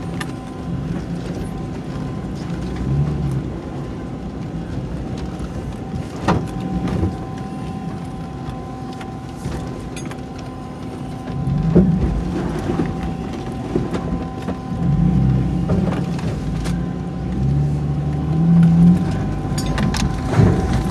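Isuzu VehiCross's V6 engine running inside the cabin as the SUV crawls over a rough dirt trail. The engine note swells several times under throttle, with a few sharp knocks from the body jolting over rocks and a thin steady whine.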